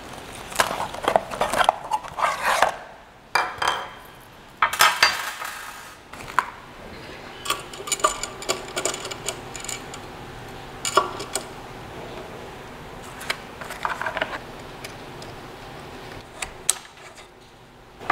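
Small metal parts and hardware clinking and clattering in irregular bursts, with handling noise, as a 3D printer is assembled by hand.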